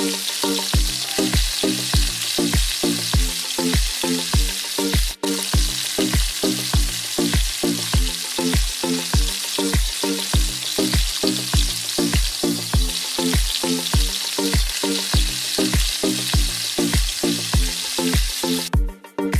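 Garlic and sliced onions sizzling in hot oil in a wok as they are stirred with a spatula, over background music with a steady beat of about two beats a second. The sizzle drops out for a moment about five seconds in and stops just before the end, leaving only the music.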